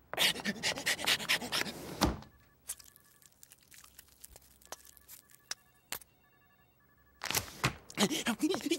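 Papers rustling and a metal filing-cabinet drawer clattering open, a dense burst of clicks for about two seconds. Then it goes quiet, with scattered ticks and faint intermittent beeping tones, and more clicking and rustling comes back near the end.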